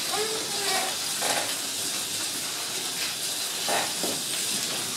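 Slot cars running on a wooden track with metal rails: a steady hiss of small electric motors and pickups on the rails, holding at an even level.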